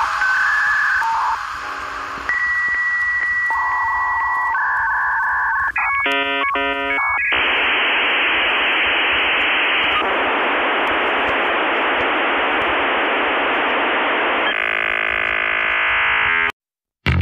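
Dial-up modem connecting: a series of steady and alternating beeps, a quick burst of stepping tones, then a long stretch of harsh hissing static that changes texture and cuts off suddenly near the end.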